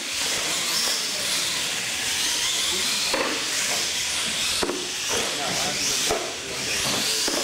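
R/C monster trucks racing on a concrete floor: a high-pitched motor and gear whine that rises and falls with the throttle, over a steady hiss of tyres.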